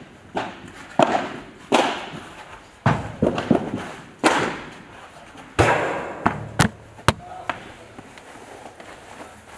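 Padel rally: a padel ball struck back and forth with rackets and bouncing, a dozen or so sharp pops that echo around a large indoor hall, stopping about three-quarters of the way through.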